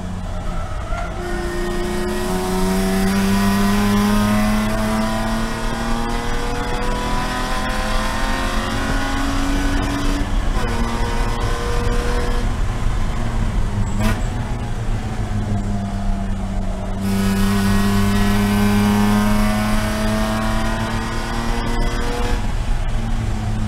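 BMW E46 Spec E46 race car's inline-six heard from inside the stripped cabin under racing load. The engine note climbs steadily as the car accelerates, breaks at a gear change, then falls and rises again as revs move between about 3,500 and 4,750 rpm through lifts and corners.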